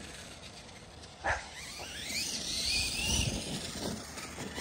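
Electric motor of a Losi King Sling RC mega truck whining, its pitch rising and falling with the throttle, with a short sharp sound about a second in.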